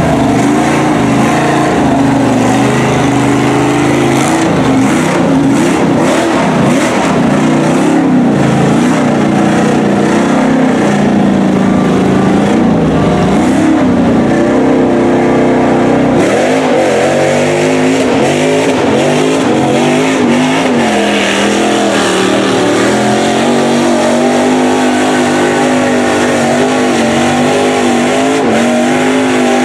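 Lifted Chevy mud truck's engine revving up and down as it churns through mud and water on tall tractor-tread tires, then running more steadily in the second half.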